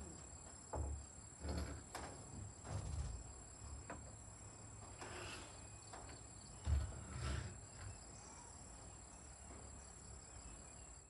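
Faint outdoor ambience: insects making a steady high-pitched drone, with a few soft low thumps and light knocks scattered through it.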